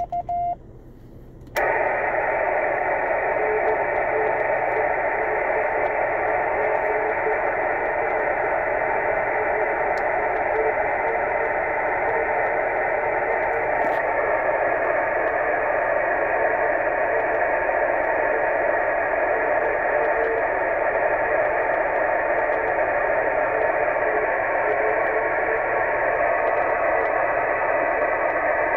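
Morse code tone from a 10 GHz amateur radio station ending within the first second, then the receiver's audio comes up as steady narrow-band hiss, with a faint wavering tone coming and going under the noise.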